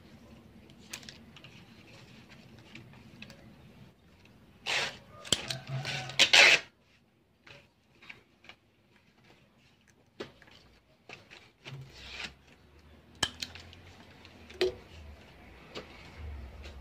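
Fresh banana leaves rustling and crinkling as they are folded into a small cup, with sharp clicks of a hand stapler fastening the folds. The loudest crinkling comes in a burst about five seconds in; single clicks are scattered throughout.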